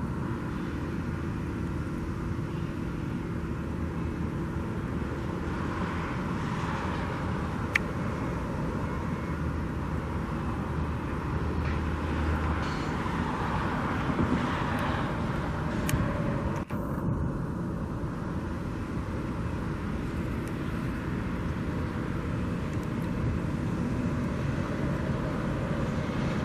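Steady outdoor rumble of distant vehicles, with a low hum that stops about halfway through.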